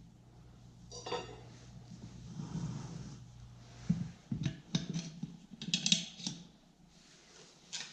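Metal hand tools clinking and scraping against metal in irregular bursts, with a faint steady hum in the first half.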